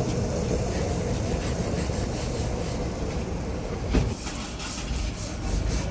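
Heavy diesel engine running steadily under a low rumble, with a single thump about four seconds in.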